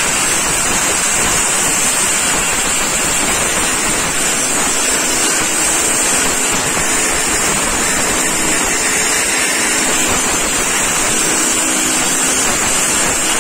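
Compressed-air spray gun blasting cleaning solvent over a motorcycle engine's stator cover and case: a loud, steady hiss that cuts off suddenly near the end.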